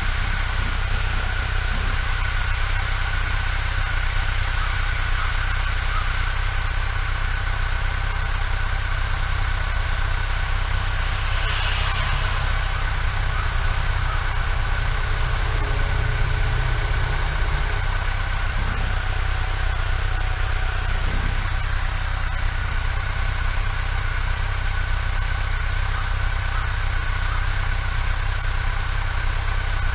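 Motorcycle engine running steadily under a heavy wash of riding noise, with a brief louder swell of hiss about twelve seconds in.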